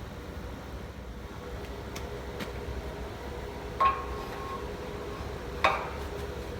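Two sharp metallic clanks, the first ringing briefly after the hit, over a steady low hum.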